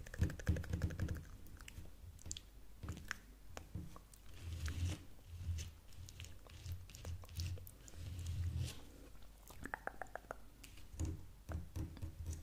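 Close-miked ASMR mouth sounds: a long run of small, wet clicks and smacks, with soft low pulses repeating about twice a second through the middle.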